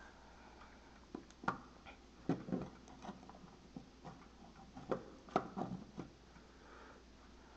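Irregular sharp knocks and clicks, about ten, some with a short low ring, close to a grandfather clock.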